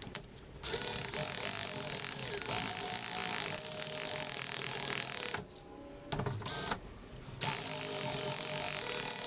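A small power tool sanding a cast silver ring: a steady abrasive hiss with a faint motor whine. It stops about five seconds in, gives a short burst, and then runs again.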